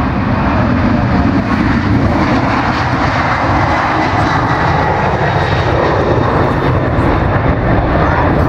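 Boeing 767's jet engines at takeoff thrust: a loud, steady rumble with a faint high whine, growing slightly louder a second or two in.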